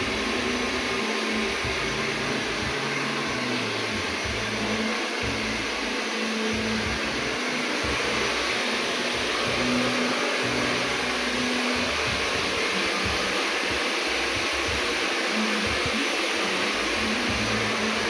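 Daikin split air conditioners running, giving a steady rush of blown air with a faint low hum that comes and goes.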